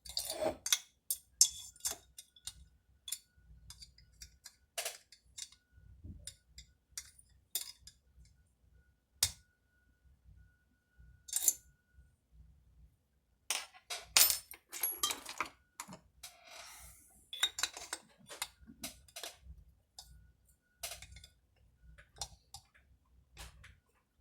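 Irregular metal clinks and clicks of hand tools and small chainsaw parts being handled and fitted during reassembly, with a short scraping rasp about two-thirds of the way through.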